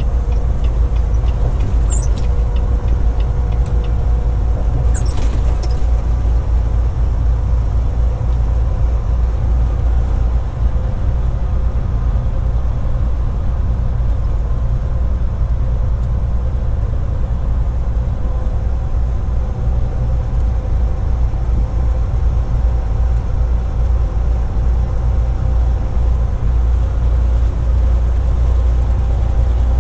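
Steady low rumble of a semi truck cruising at highway speed, engine and tyre noise heard from inside the cab, with a faint steady whine over it. Two faint clicks about two and five seconds in.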